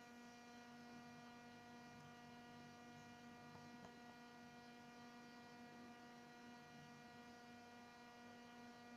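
Near silence with a faint, steady electrical hum made up of many evenly spaced tones.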